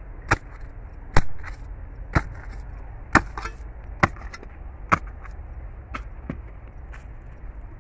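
Repeated chopping blows from a long-handled tool into the root of a castor bean plant, about one strike a second, seven sharp hits followed by two lighter ones near the end.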